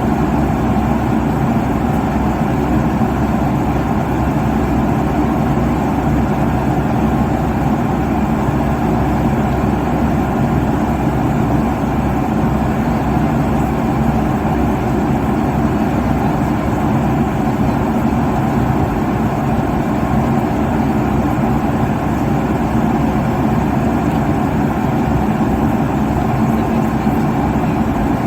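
Steady airliner cabin noise at cruising altitude: an even, unchanging rush of engine and air noise, heaviest in the low and middle range, with a faint steady hum.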